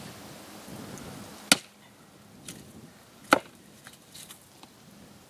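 Axe splitting birch firewood on a chopping block: two sharp blows about two seconds apart, with a few light knocks of wood between.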